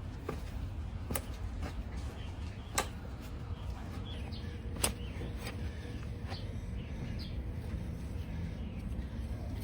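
Three sharp clicks during donkey hoof trimming, over a steady low rumble, with faint bird chirps in the middle.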